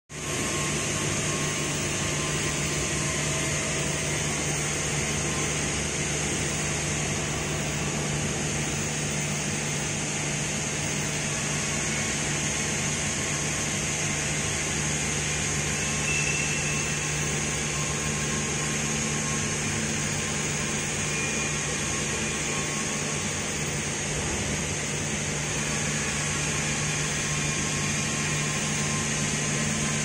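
Steady hum and hiss of running machine-shop machinery around a DMG Mori NHX 8000 horizontal machining center, a constant low drone under a high hiss with no change in pitch or level.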